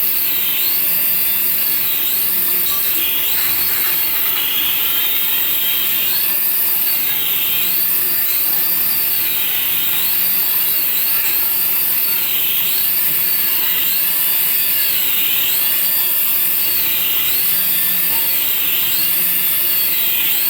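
Battery-powered toy's electronic sound effect: a high whine that rises and falls in a repeating arch about once a second over a steady hiss.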